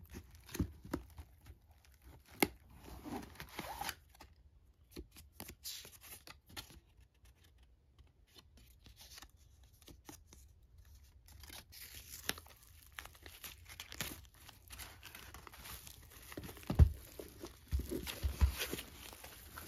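Crinkling and rustling of plastic wrap and tissue paper as a new handbag is handled and unwrapped, with small clicks from handling. Near the end come a few dull thumps as the bag is turned over.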